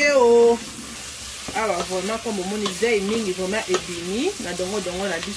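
Wooden spoon stirring vegetables frying in a steel pot, with a light sizzle, under a voice singing a wavering tune that is the loudest sound.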